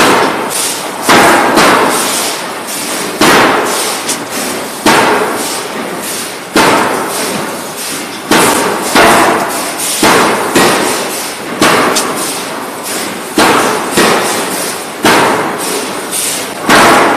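Die forging hammer on an automatic knife forging line striking table-knife blanks in a steady rhythm: a heavy blow about every 1.7 seconds, each ringing away before the next. Lighter metallic clatter between the blows.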